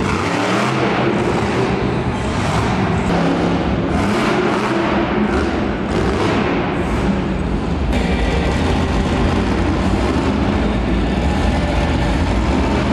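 Monster truck engine revving hard in repeated surges, rising and falling, then running more steadily after about eight seconds.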